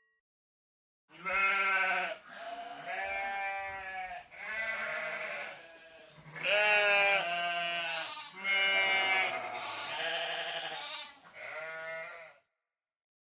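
Goat bleating over and over, a run of about seven wavering bleats with a quavering pitch, starting about a second in.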